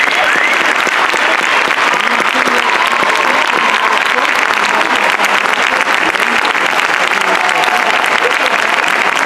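Audience applauding steadily, a dense crackle of many hands clapping, with a few brief cheers over it.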